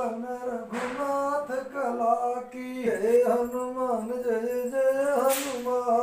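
A voice singing a Hindu devotional aarti hymn, drawing out long held notes that slide from pitch to pitch.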